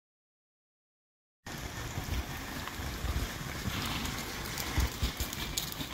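Dead silence for about a second and a half, then wind buffeting the microphone with a low rumble. Through it come a few faint hoofbeats of a horse trotting on arena sand.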